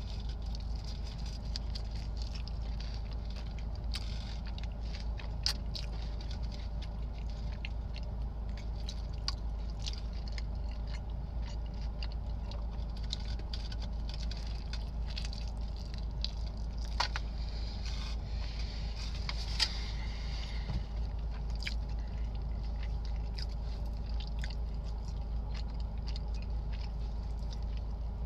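Close-miked eating of a burrito: many small mouth clicks and smacks from chewing, over a steady low hum.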